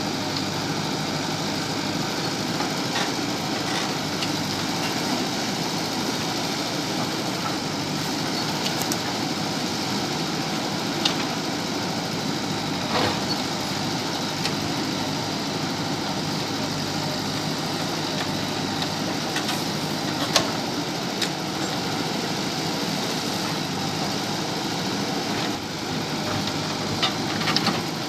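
JCB backhoe loader's diesel engine running steadily while digging, with a few short sharp knocks, the clearest about 11, 13 and 20 seconds in and several more near the end.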